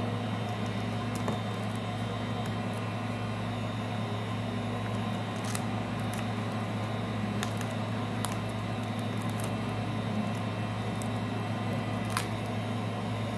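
Heat gun running with a steady hum and rush of air while it heats the iPad 2's glass to soften the adhesive, with a few sharp clicks scattered through.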